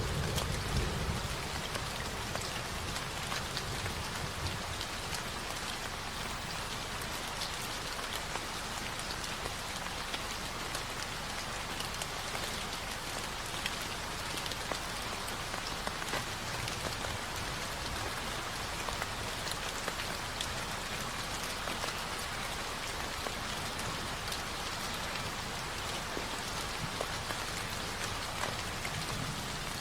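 Steady rain falling on a surface, a dense even hiss dotted with the small ticks of individual drops. A low rumble dies away in the first second.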